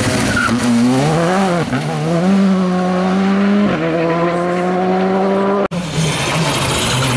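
Škoda Fabia R5 rally car accelerating hard past and away, its engine pitch climbing and dropping sharply at two quick upshifts. About five and a half seconds in, the sound cuts abruptly to another rally car's engine.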